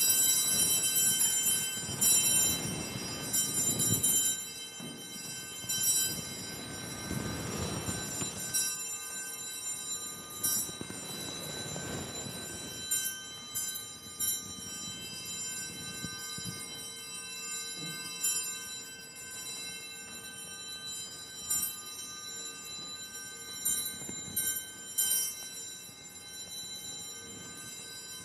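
Altar bells rung for the blessing with the Blessed Sacrament at Benediction. The bells are shaken hard about every two seconds for the first several seconds, then more lightly and now and then, the ringing carrying on between shakes.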